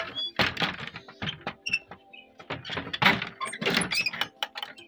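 Wooden plank door being pushed shut by hand: a series of irregular knocks and rattles, the loudest about three seconds in.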